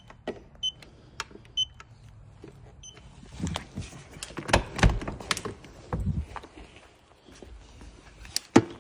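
A handheld paint thickness gauge gives a few short high beeps in the first three seconds as it is pressed against the car's body panels, with light clicks of the probe. It is followed by thuds and shuffling of footsteps on a concrete floor, loudest about halfway through.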